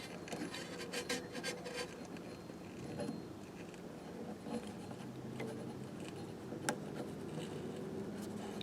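Faint handling noise: light clicks and rubbing as a rubber band is stretched onto the drive pulleys of a tape-echo mechanism as a makeshift belt, with one sharper click near the end.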